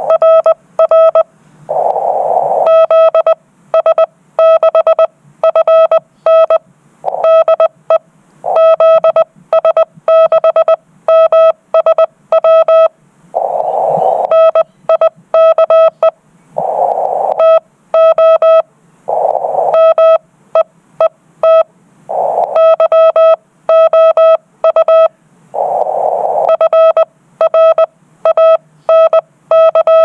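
Morse code sent on a ham radio transceiver: its sidetone, one steady mid-pitched tone, keyed on and off in quick dots and dashes, in groups. A soft hiss fills the longer gaps between groups.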